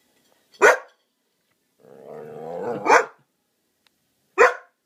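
Irish setter giving alarm barks as a watchdog at something outside: three sharp barks, the second preceded by a low growl that builds up into it.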